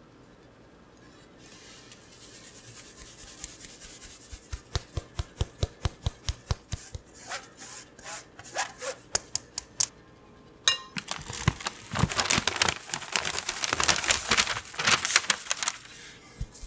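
Flour and baking powder being sifted through a stainless-steel mesh sieve: a rhythmic tapping about three times a second. From about eleven seconds in comes a louder, denser rasping as the flour is worked through the mesh.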